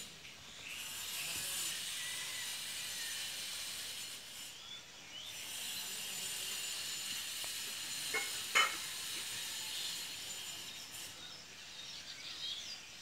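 Outdoor garden ambience: a steady high-pitched hiss with two sharp clicks in quick succession about eight seconds in.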